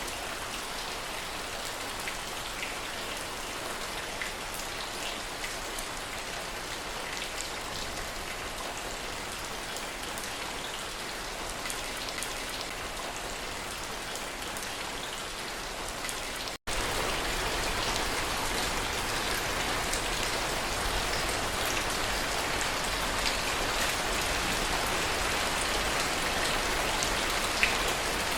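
Steady heavy rain, with separate drop hits audible in the hiss. About seventeen seconds in it cuts out for an instant and comes back louder and fuller, with more deep rumble in it.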